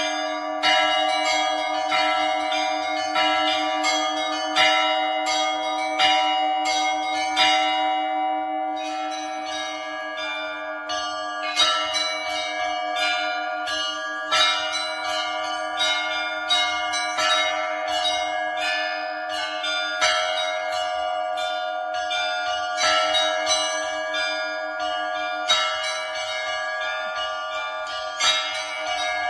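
Russian Orthodox church bells rung as a peal by a bell-ringer: small bells struck in quick patterns over the long, steady hum of larger bells, with stronger strikes about every second and a half.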